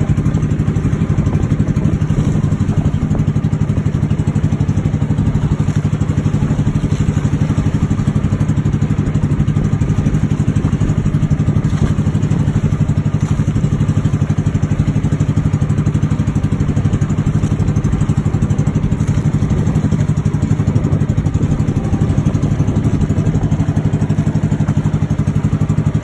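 Boat engine running steadily, a constant low drone with no change in speed.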